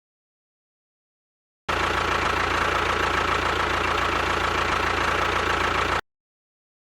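Steady mechanical running noise, like a small engine or motor running at constant speed with one held tone over a low rumble. It starts suddenly about two seconds in and cuts off suddenly about four seconds later, with total silence on either side.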